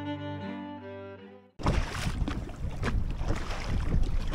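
Bowed-string music, cello and violin, fades out; about a second and a half in it cuts abruptly to loud wind buffeting the microphone on open water from a small boat.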